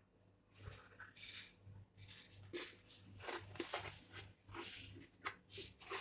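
Wooden spatula stirring and scraping dry vermicelli strands around a frying pan on the stove: a run of short, faint, irregular rustling scrapes.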